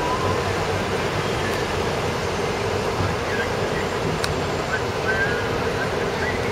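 Steady traffic noise from a busy multi-lane city boulevard: many cars running past together as a continuous rumble and hum, with no single vehicle standing out.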